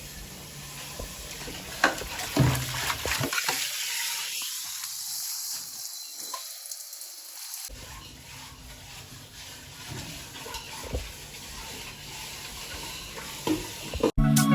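Chicken cooking in a pot on the stove: a steady hiss with a few sharp clicks of a utensil stirring.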